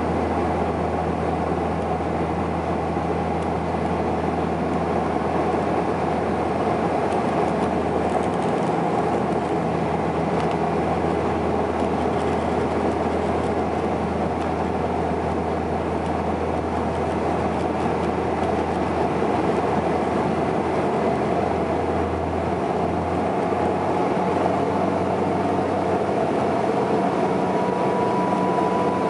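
Cabin drone of a Saab 340B in flight, heard beside its GE CT7 turboprop engine: a steady low propeller hum over engine and airflow noise. About three quarters of the way through the deepest part of the hum drops away, and near the end a faint high whine slowly rises.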